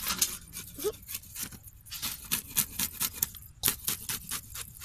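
A whole fish being handled in a plastic colander: a rapid, irregular run of light clicks and scrapes.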